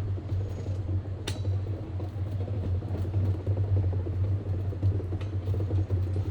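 Electric rack-railway train of the Rigi line running, with a steady low hum and rumble and one sharp click about a second in.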